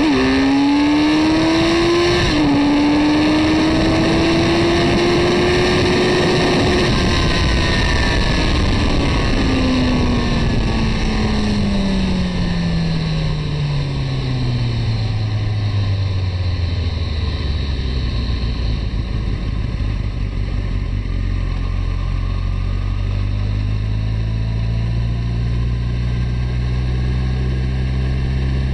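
Suzuki Hayabusa's inline-four engine under full throttle in a drag run, upshifting twice in quick succession (the pitch drops at once, right at the start and about two seconds in), holding high revs for a few seconds, then winding down steadily as the throttle is closed after the finish and settling to a low steady note. Heavy wind rush over the onboard microphone throughout.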